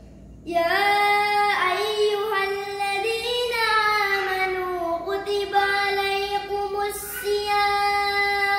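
A child's solo voice singing unaccompanied, starting about half a second in, in long held notes that slide and waver in pitch, with a few brief breaks between phrases.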